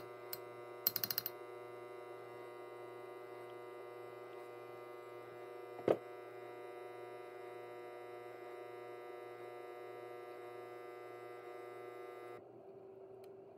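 A steady electrical hum made of many even tones, which cuts off shortly before the end. About halfway through, a metal spoon knocks once against a stainless-steel frother jug with a sharp clink.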